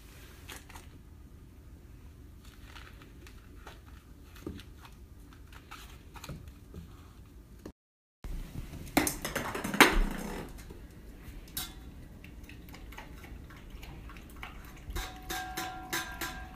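Rottweiler puppy at play: faint scattered clicks and taps, then a short louder burst about nine seconds in. Near the end, a ball knocks against a stainless steel water bowl and the bowl rings.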